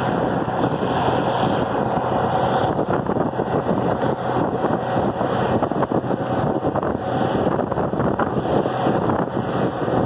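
Farmall diesel tractor engine running steadily under way, heard from a following car, with wind rushing over the microphone.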